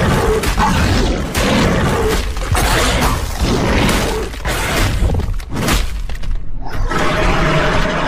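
Sound-designed creature effects for a zombie Argentinosaurus: harsh, noisy bursts about once a second, changing near the end to a steadier pitched sound.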